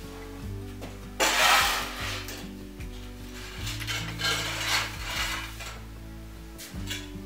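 Straw broom sweeping strokes on wooden floorboards, brushing debris into a dustpan: a few brushy swishes, the loudest about a second in.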